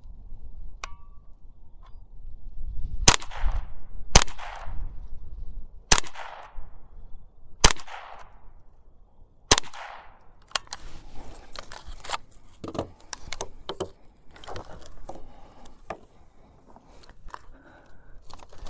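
GSG-15 semi-automatic .22 LR rifle fired five times from the bench, slow aimed shots about one to two seconds apart, each sharp crack trailing off in a brief echo. A run of quieter clicks and knocks follows after the last shot.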